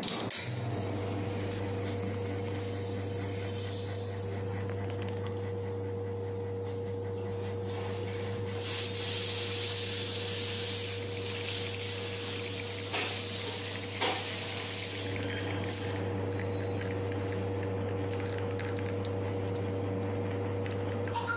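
La Marzocco GS3 AV espresso machine's rotary pump switching on with a click and running with a steady low hum as it pulls an espresso shot. There is a stretch of hissing about nine seconds in, and a couple of light clicks a few seconds later.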